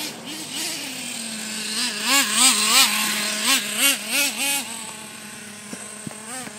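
Traxxas T-Maxx 3.3 RC truck's small nitro engine running at a steady high-pitched idle, then revved up and down in about seven quick throttle blips as the truck drives, settling back to a steady note near the end.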